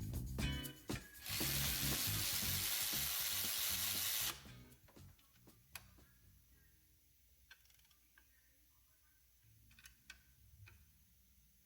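Background music for about the first second, then a loud steady hiss lasting about three seconds that cuts off suddenly. After that come faint scattered clicks and taps of tools.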